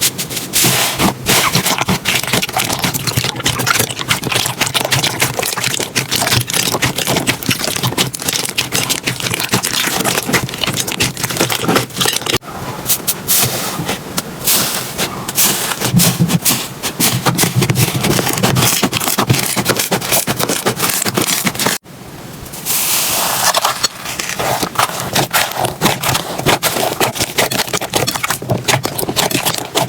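Slime being squeezed and pressed by hand, giving dense, rapid crackling and popping clicks. A sudden cut about 22 seconds in is followed by a brief smoother hiss, and then the crackling returns.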